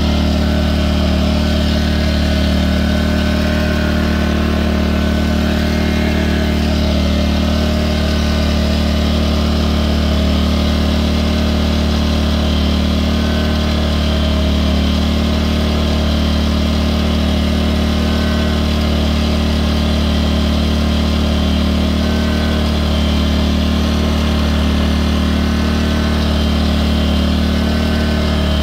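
Firman W01785 2100-watt inverter generator running at a steady speed, its engine note holding even throughout.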